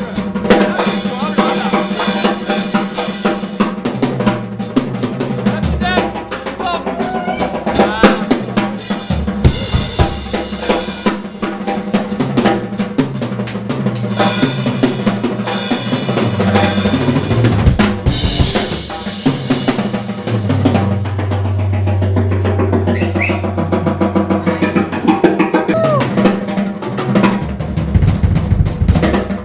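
A band playing live: a drum kit played hard with dense bass drum and snare hits, over electric guitar and a low, stepping bass line.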